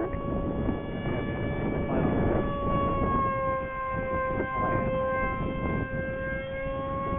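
Electric motor and propeller of a radio-controlled foam park jet whining at a steady throttle as it flies overhead: one high tone that holds its pitch, with wind rumbling on the microphone.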